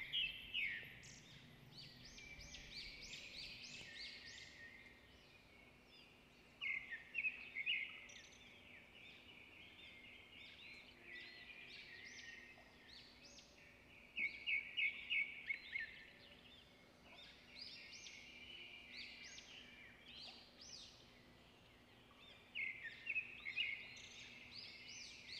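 Birds chirping, faint, in repeated clusters of quick high chirps every few seconds.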